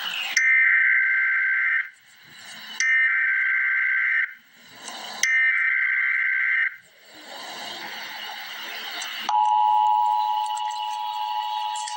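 Emergency Alert System tones opening a flood warning: three identical bursts of the SAME digital header, each about a second and a half long with short gaps between, then, about nine seconds in, the steady two-tone EAS attention signal starts and holds.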